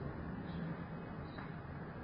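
Quiet room tone through an open balcony: a steady low hum of distant city ambience, with a couple of faint short high chirps.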